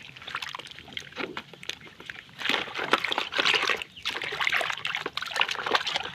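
Water splashing and sloshing while a mud-covered toy is washed by hand, with irregular dribbles and small knocks. It gets louder from about two and a half seconds in.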